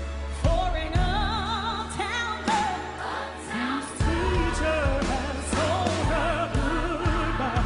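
Female solo singer holding long, wavering notes and runs with wide vibrato over a live band with sustained bass and drums; the band grows louder about four seconds in.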